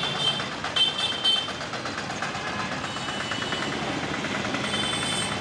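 Street traffic noise with vehicle engines running steadily. Three short high-pitched sounds come in the first second and a half, and a longer one near the end.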